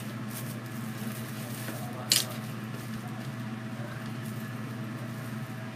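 Foil deco mesh and ribbon rustling and crinkling as they are handled and tied onto a wreath, with one brief, louder crinkle about two seconds in, over a steady low hum.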